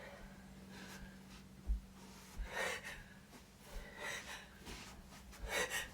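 A person taking about four short, gasping in-breaths, roughly one every second and a half: the catching breaths before a sneeze.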